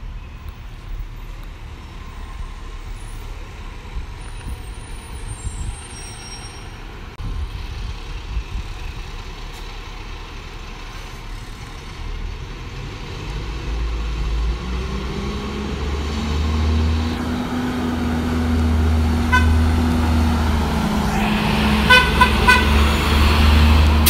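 A 2002 Blue Bird school bus on an International 3800 chassis approaches and passes close by. Its diesel engine grows steadily louder as it nears. Several short horn toots sound over the engine near the end.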